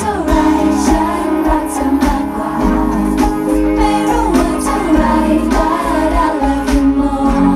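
A woman singing a Thai pop dance song live into a microphone over loud backing music with a steady beat, heard through the stage speakers.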